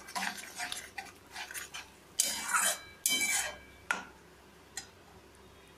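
Metal spatula scraping and clattering against a metal kadai while stirring and frying a thick spice paste. There are several scrapes, the two longest a little past the middle, then a couple of sharp taps.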